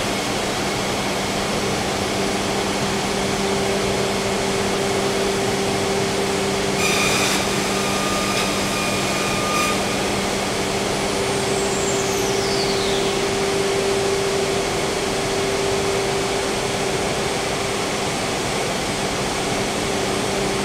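Freedom Machine Tool Patriot CNC router running with its dust extraction drawing air: a steady rushing machine noise over a low steady hum. A short clatter comes about seven seconds in, and a brief high whistle falls in pitch a few seconds later.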